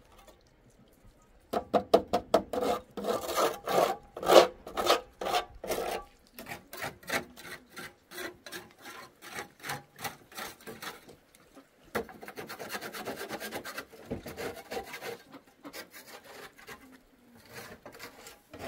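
Rhythmic scraping strokes, about three a second, loudest in the first few seconds and lighter after that.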